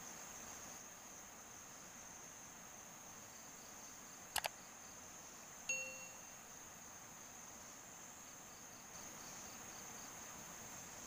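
Faint, steady high-pitched chirring of insects, with a pulsing call near the start and end. About four and a half seconds in come two quick clicks, then a short bell-like ding a second later: a subscribe-button sound effect.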